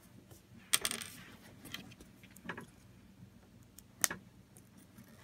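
Small plastic LEGO pieces clicking and tapping as they are handled and pressed together on a wooden table: a few separate sharp clicks, the loudest about a second in with a short rattle after it, and another near the end.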